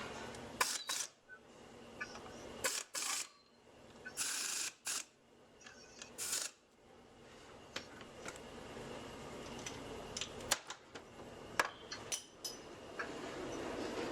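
Hand ratchet clicking in several short runs while tightening bolts on the CVT's secondary variator plate, with scattered sharp metallic clicks between them.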